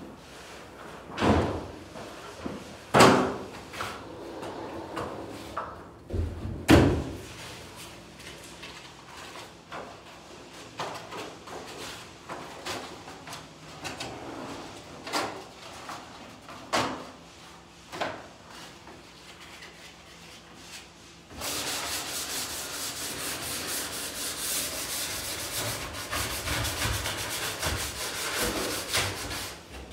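A few loud knocks and thuds as an aluminium stepladder is carried and set down. Then, from about two-thirds in, steady hand sanding of a wall with a sanding sponge: a rough, scratchy rasping in back-and-forth strokes.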